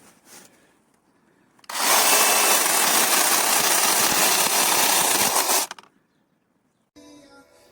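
Bosch EasyChain 18V-15-7 battery mini chainsaw with a brushless motor running for about four seconds, starting and stopping abruptly.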